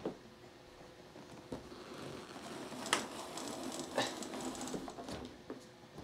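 Handling noises from a plastic table fan being moved: several separate knocks and clicks with rustling in between, the sharpest about three and four seconds in. The fan is switched off.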